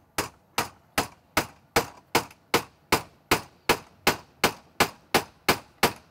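Claw hammer driving a square wooden peg into a drilled round hole through a canoe's wooden gunwales: a steady run of sharp taps, nearly three a second.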